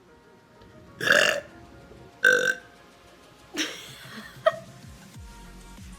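A woman belching three times, roughly a second apart, the first two the loudest.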